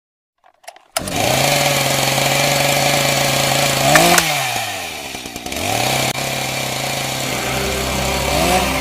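A chainsaw starts about a second in and runs at a steady high speed. It revs up and dies away about four seconds in, then spins back up to speed and revs once more near the end, with a low rumble joining under it.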